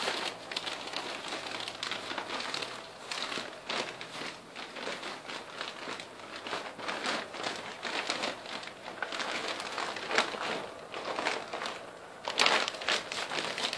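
Plastic sheeting crinkling and rustling in irregular crackles as it is pulled and tucked by hand over a straw-covered plant, louder near the end.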